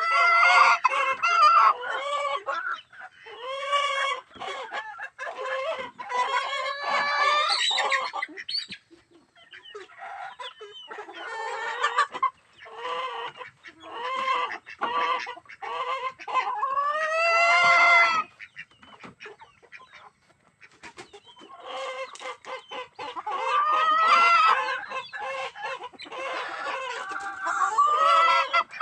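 Chickens clucking in bursts with short pauses, and a rooster crowing once, a long call about two-thirds of the way through.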